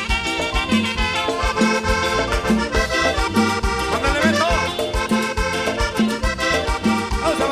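Live tropical dance band playing an upbeat Latin tune through a PA, a steady bass beat under sustained instrument chords.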